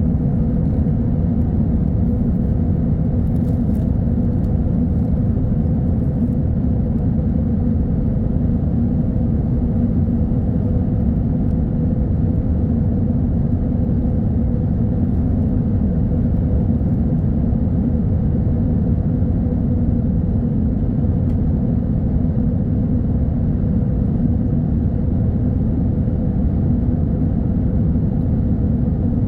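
Jet airliner cabin noise in flight: a steady, even low rumble with a faint constant hum, unchanging throughout.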